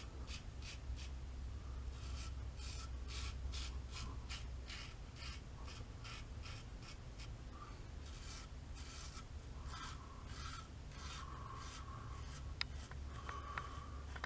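Rolls razor blade scraping stubble through shaving lather in short, quick strokes, about three or four a second at first and looser later, shaving upward against the grain.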